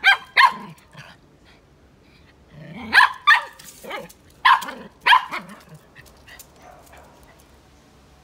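Small dog barking at a cobra: two barks at the start, then a run of about five more from about three seconds in, stopping after five and a half seconds.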